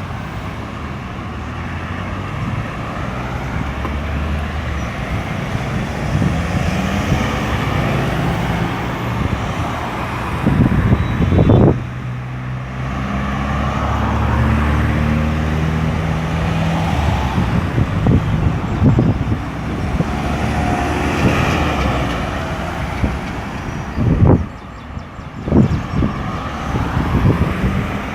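Road traffic passing on a busy roundabout: cars and heavy vehicles going by. A truck or bus engine drone stands out in the middle, and a few sudden low thumps come about a third of the way in and again near the end.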